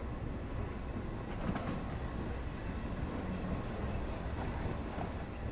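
Steady low rumble of railway station ambience with a faint steady hum. There are a few light clicks, the clearest about a second and a half in.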